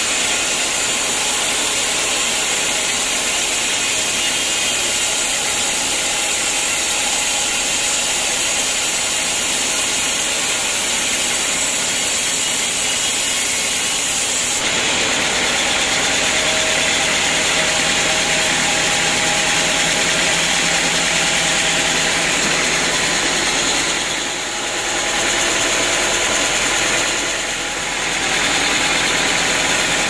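Band sawmill running steadily, its band saw blade cutting through a teak log. The sound shifts about halfway through and dips briefly twice near the end.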